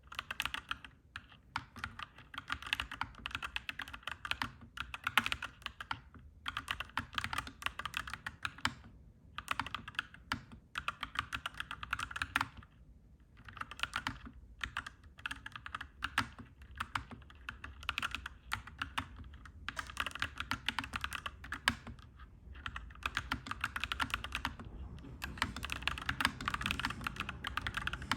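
Clacky mechanical keyboard being typed on in fast runs of keystrokes, broken by short pauses. A low steady rumble sits underneath and grows slightly louder near the end.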